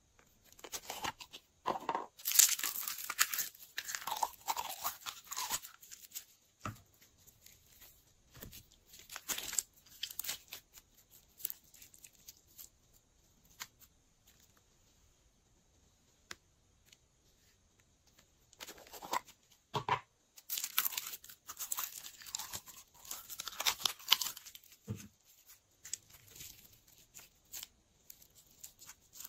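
Hands squeezing, pressing and pulling apart glossy and clear glitter slime: sticky crackling and popping in two long spells, with scattered single clicks between them.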